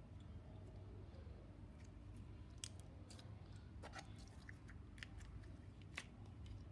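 Slime being squished and stretched by hand, giving faint, scattered sticky clicks and pops.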